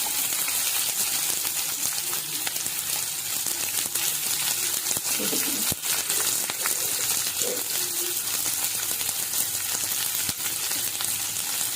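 Chopped onion and green chillies sizzling as they fry in hot oil in a pan, a steady crackling hiss, with a couple of sharp clicks about six and ten seconds in.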